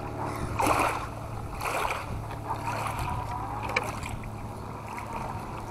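Electric motor and geared drivetrain of an Axial SCX10 II RC crawler running with a steady hum, with brief bursts of crunching and a few sharp clicks as the tires crawl over leaf litter and twigs.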